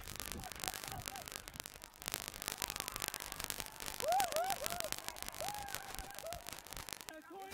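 Stadium crowd cheering and clapping as a player breaks clear and scores a try, with several rising-and-falling hooting calls from spectators starting about four seconds in.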